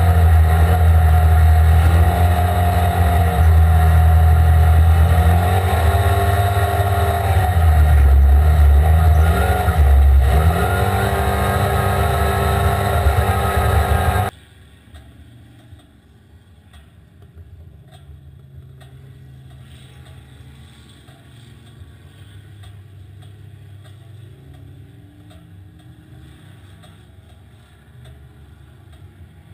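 Side-by-side UTV engine running over sand dunes, heard from the driver's seat, its pitch rising and falling as it revs. About halfway through the sound drops off suddenly to a much fainter, muffled engine sound.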